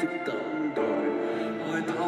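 Live band music from a slow song: sustained keyboard-like chords held steady, changing chord about three-quarters of a second in, with a few light crisp strokes over them.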